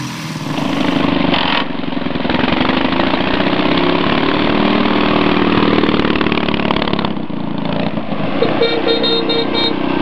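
BMW R32 motorcycle's flat-twin engine running and revving as it is ridden, its pitch rising and falling, with a change in the engine sound about a second and a half in and again about seven seconds in. A quick run of short high beeps sounds near the end.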